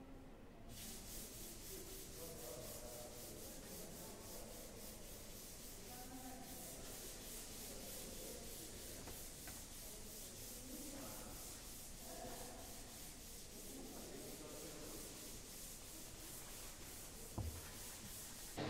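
Hand sanding a wall: a steady, scratchy rubbing with an even back-and-forth rhythm of strokes, starting just under a second in. A single low thump near the end.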